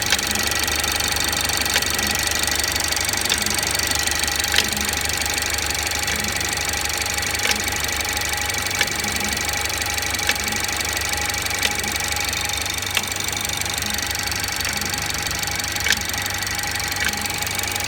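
BMW F30's B48 turbocharged four-cylinder engine running after a cold start, with a sharp click about every second and a bit, somewhat irregular, over its steady hum.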